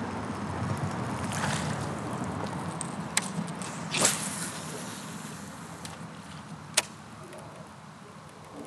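A fishing rod cast with a topwater rat lure: a swish of the cast about four seconds in, and a few sharp clicks of rod and reel handling, over a low rumble that fades away.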